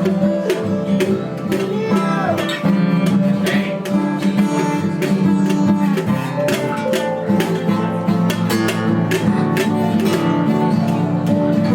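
Acoustic guitar being strummed, with a regular run of strokes and the chords ringing on between them.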